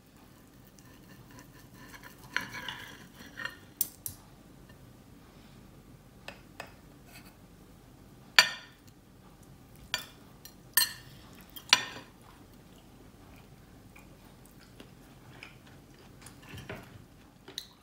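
Steak knife and fork scraping and clinking against a ceramic plate while cutting a grilled steak: a stretch of scraping early on, then a handful of sharp clinks, the loudest about eight seconds in.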